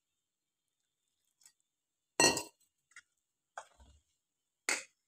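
A metal spoon clinking and knocking against a metal mixing bowl while stirring gram-flour batter: about five separate short clinks, the loudest about two seconds in.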